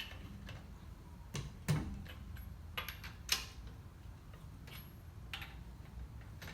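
Irregular metallic clicks and knocks of a wrench on a car wheel's lug nuts as they are tightened a little at a time in a star pattern, over a low steady hum.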